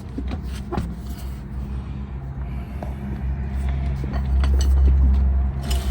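Low steady rumble with a faint hum, swelling over the last two seconds, with a few light clicks and knocks over it.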